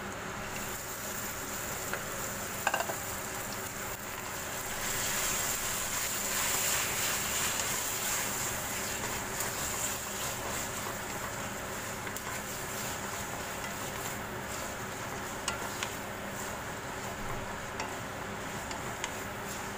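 Marinated chicken pieces sizzling in hot oil with sliced onions in a wok while a wooden spatula stirs them. The sizzle grows louder about five seconds in, then settles, with a few light knocks of the spatula against the pan.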